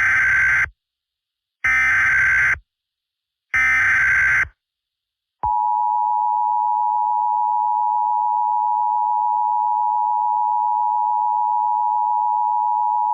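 Emergency Alert System header: three identical one-second bursts of digital data screech about two seconds apart. About five seconds in comes the EAS two-tone attention signal, a steady harsh tone held for about eight seconds. Together they open an emergency alert broadcast, here a National Weather Service tornado watch.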